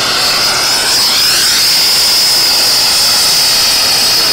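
Air-acetylene hand torch burning with a steady hiss, its flame heating a copper-to-aluminum tubing joint before the solder goes on.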